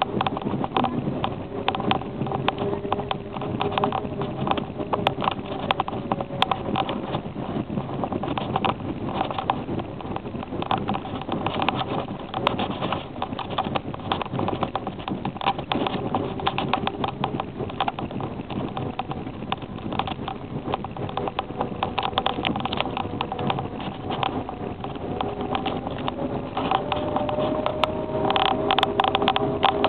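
Toyota Corolla 1.6's engine running under way, with dense, irregular clicking and rattling throughout. The engine tone rises in pitch near the end.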